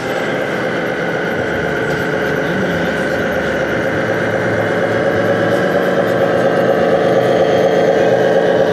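Simulated diesel engine running from the sound module of a radio-controlled Scania truck model, steady and slowly growing louder as the truck comes closer.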